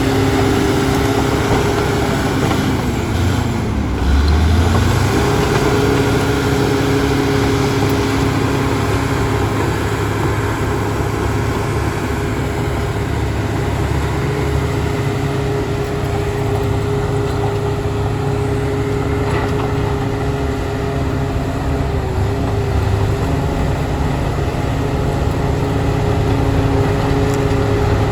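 Bulldozer's heavy diesel engine running steadily under load. Its pitch sags briefly about three to four seconds in, with a surge of low rumble, then recovers.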